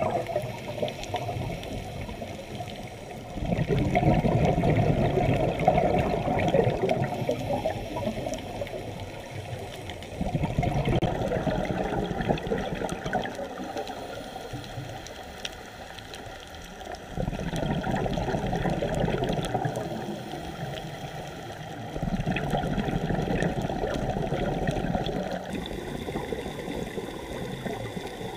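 Scuba diver's exhaled bubbles from the regulator, recorded underwater: four loud bubbling stretches of about three seconds each, roughly six seconds apart, with quieter water noise between.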